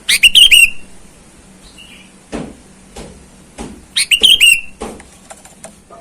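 Sooty-headed bulbul (kutilang) singing two short, loud bursts of quick rising whistled notes, one at the start and another about four seconds later. A few short knocks fall in between.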